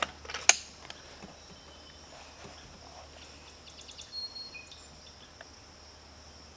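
Quiet outdoor ambience with a steady high-pitched insect drone. There is a single sharp click about half a second in, then a few faint ticks and short high chirps around the middle.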